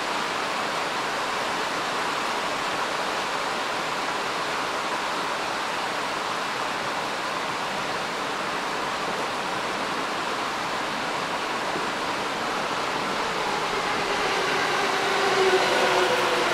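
Heavy downpour rain hissing steadily on the platform and tracks. About fourteen seconds in, the whine of a JR East E217-series electric train's traction motors joins it and grows a little louder as the train passes.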